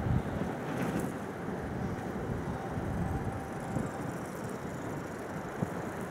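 Wind buffeting the microphone: a steady, low rushing rumble with a brief sharp knock near the end.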